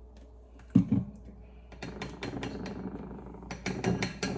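A single thud about a second in, then a utensil clicking and tapping irregularly against a mixing bowl as sourdough pizza dough ingredients are stirred together.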